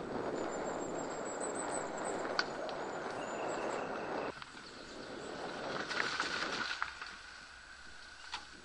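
Mountain-bike tyres rolling and crunching over a gravel forest track, with a few sharp clicks and rattles from the bike. The rolling noise drops suddenly about four seconds in, swells again, then fades after about seven seconds.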